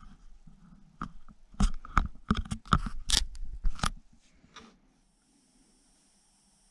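A stack of cardboard trading cards being handled in the hand: a quick run of sharp clicks and scrapes over a few seconds, then it goes quiet about two thirds of the way through.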